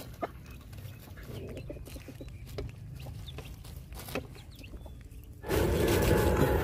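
Puppies eating off a plastic sheet, with soft clicks and faint chicken clucks. About five seconds in comes a sudden, much louder rustle and scrape of a plastic bowl on the plastic sheet as food is put down.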